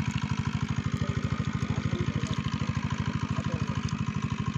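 A small engine running steadily, with an even, rapid pulse of about a dozen beats a second.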